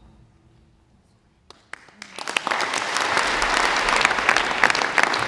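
Audience applause: after a short near-quiet, many hands start clapping at once about two seconds in and keep up a dense, even clatter.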